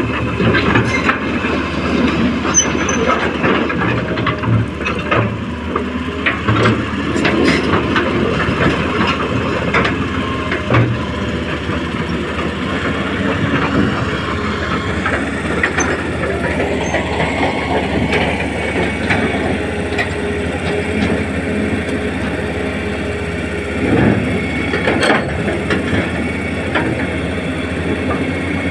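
Remote-control Hitachi model excavator working: a steady mechanical running with many sharp clicks and knocks, thickest in the first half.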